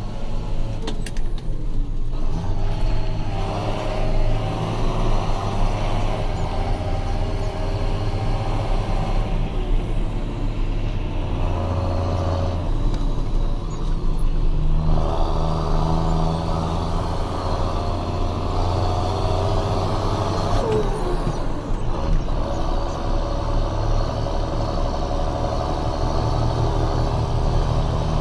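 John Deere 6530 tractor's turbocharged diesel engine running, its speed stepping up and down several times, with the turbocharger whistling over the engine note.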